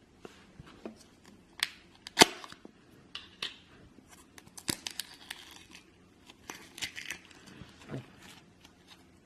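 Slime being squished and stretched by hand, giving irregular sticky pops and crackles. The loudest is a sharp pop a little over two seconds in.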